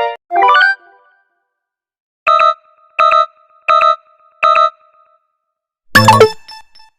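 Four short, identical synthesized beeps about three-quarters of a second apart, the alert tones of a mock emergency alert. They follow a quick falling synthesizer figure. About six seconds in comes a loud electronic sweep that falls in pitch.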